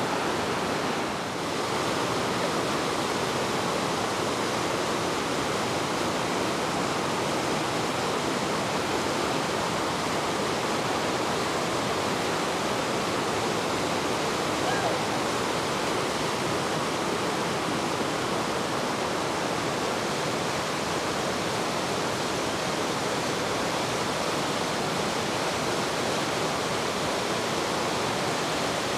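Whitewater rapids on a rocky river rushing steadily: a loud, even noise of churning water, with a brief dip about a second in.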